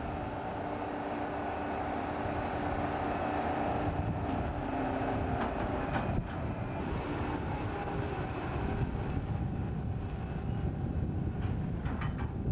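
Diesel trailer-loading crane running with a steady drone as it works over trailers on railroad flatcars, with a few sharp metallic clanks about halfway through and near the end.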